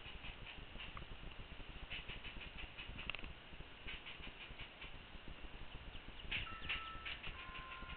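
Squirrel up in the trees scolding: several bursts of rapid, faint clicking chatter, the strongest about six and a half seconds in.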